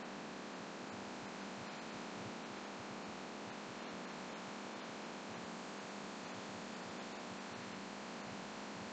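Steady airflow noise from a laminar flow hood's running blower, with faint scattered ticks from small vials being handled.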